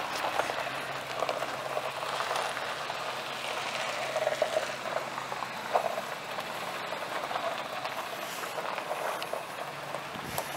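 Steady vehicle noise: a low hum under a rough, uneven hiss.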